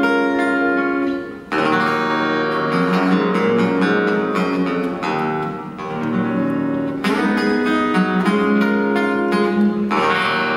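Solo acoustic guitar playing a slow sequence of ringing strummed chords, moving to a new chord every few seconds. It is the simple chord sequence that the keyboard riff grew out of.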